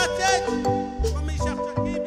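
Live Latin dance band playing: electronic keyboard, electric bass and congas in a steady groove.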